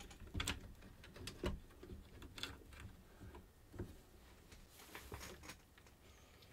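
Faint handling noise: light clicks, knocks and rustling of hands moving wired circuit boards and fitting a replacement fader inside an opened ARP 2600 synthesiser, with a click or knock about once a second.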